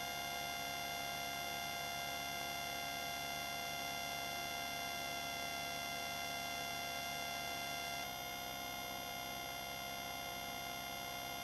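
Steady electrical hum with a buzz of many high overtones, unchanging in pitch; about eight seconds in it shifts slightly and becomes a little quieter.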